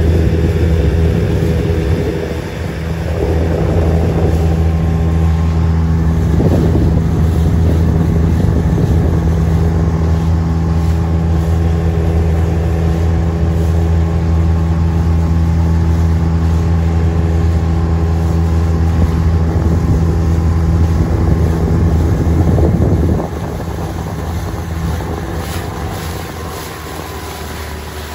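A small boat's outboard motor runs at a steady speed under the rush of water and wind. About three-quarters of the way through it throttles back and the engine note drops to a quieter running.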